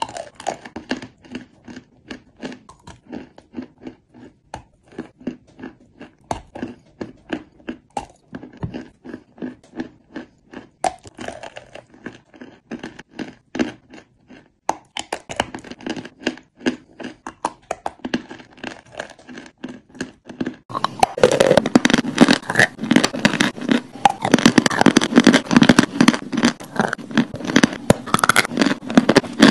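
Close-miked mouth sounds of someone biting and chewing chunks of chalk: a quick, irregular run of sharp crunches and crackles, turning much louder and denser about two-thirds of the way through.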